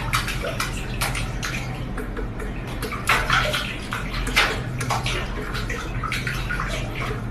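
Water running and splashing, with irregular louder splashes throughout over a steady low hum.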